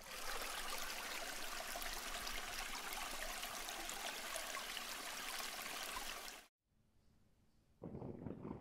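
Steady rushing noise of running water, like a stream, that cuts in suddenly and cuts off after about six seconds. A fainter, different sound starts about a second later.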